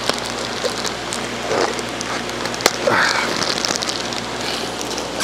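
Plastic fish-shipping bags crinkling and rustling as they are handled and opened, with water splashing, giving a steady dense crackle.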